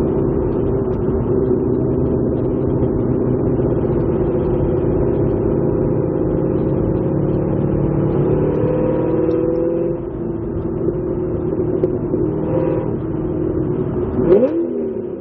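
Corvette Z06 engine through an AWE axle-back exhaust, driving under steady throttle with a steady drone. The pitch climbs a little about eight seconds in and then eases off at about ten seconds as the throttle lifts. Near the end there is a quick, sharp sweep up and down in pitch, the loudest moment.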